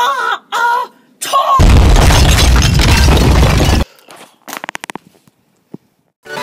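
A loud, explosion-like boom lasting about two seconds that cuts off abruptly, preceded by three short high, wavering voice-like squeaks. A few faint clicks follow.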